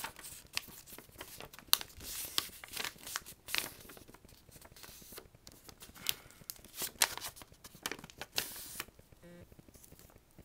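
A sheet of paper rustling and crinkling as it is handled and folded into a paper airplane, with quick sharp creasing strokes. The handling dies down near the end.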